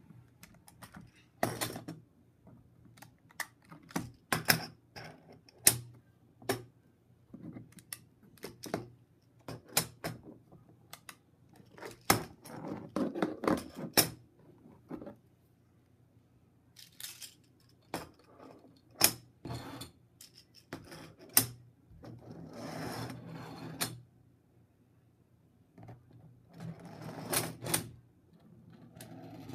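3D-printed plastic magnetic construction pieces clicking and clacking as they snap together and are set down on a desk, with irregular sharp clicks and a few longer stretches of pieces sliding and rubbing.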